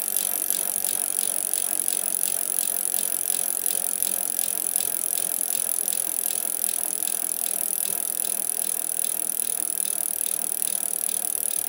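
A steady hiss with light, regular mechanical ticking, about three to four ticks a second.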